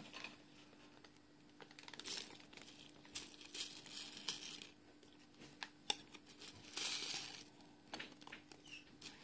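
Small plastic iron-on beads shifting and clicking against each other and the plastic jar as fingers dig through them, heard as faint scattered clicks and short rustles.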